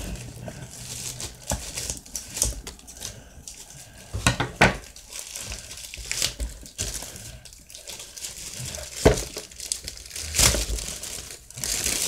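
Plastic packaging crinkling and crackling as it is handled and pulled open by hand, in irregular bursts with a few sharp, louder crackles.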